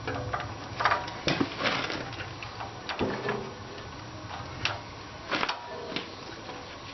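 Hand tools and metal parts clicking and clanking at irregular intervals, from work on the tractor's carburetor and its linkage, with a few short metallic rings.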